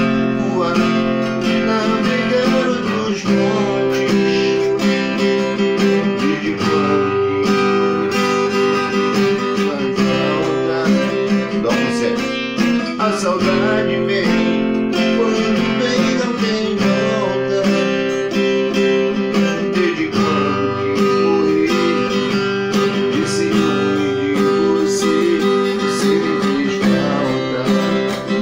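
Acoustic guitar strummed steadily, ringing chords changing in a continuous song accompaniment.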